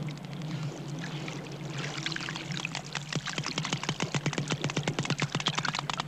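Underwater dolphin echolocation clicks picked up by a hydrophone. The blindfolded dolphin is finding his way by sonar. A soft watery hiss gives way, about two seconds in, to a rapid click train that grows denser and louder.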